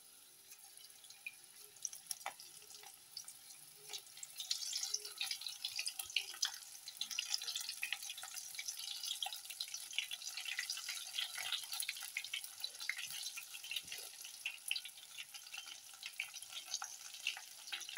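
Besan-battered drumstick-flower pakoras deep-frying in hot oil: a steady sizzle of many small crackling pops, fainter at first and growing louder about four seconds in.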